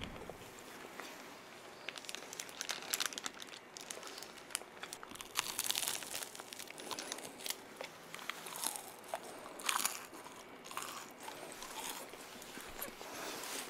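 Close-miked crunching bites into chocolate-coated wand-shaped sticks, with chewing and the crinkle of a foil wrapper. Sharp, irregular crunches come every second or so.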